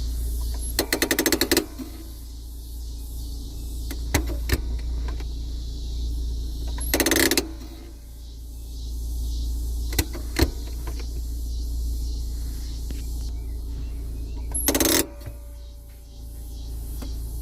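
Fiat Uno handbrake lever being worked: three quick runs of ratchet clicks as it is pulled up, about a second in, around seven seconds and around fifteen seconds, with separate single clicks between as it is released. A steady low hum lies underneath.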